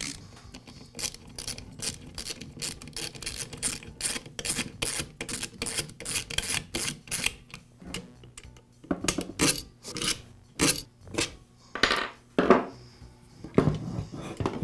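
Hand driver backing out the screws that hold a Poulan chainsaw's engine to its plastic base: a quick, even run of clicks, about three or four a second. About two thirds of the way through, louder knocks and clatter of plastic and metal parts being handled take over.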